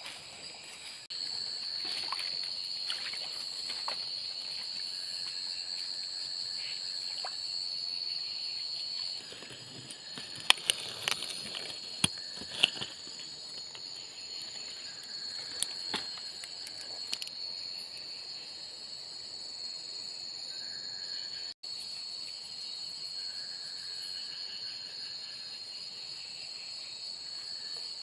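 Night-time insect chorus of crickets trilling steadily at a high pitch, with a handful of sharp knocks in the middle.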